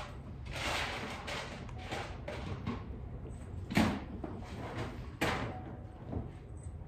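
A few sharp knocks and thuds over a low room hum, the two loudest about four and five seconds in.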